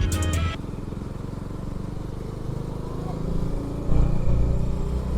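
Bajaj Dominar 400's single-cylinder engine running under way, heard from the rider's own motorcycle, getting louder about four seconds in.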